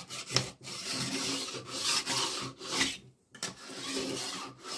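Bar dresser file rasping back and forth along the steel rails of a chainsaw guide bar in repeated strokes, with a brief pause about three seconds in. The strokes are filing the rails level and taking off rust, burrs and marks.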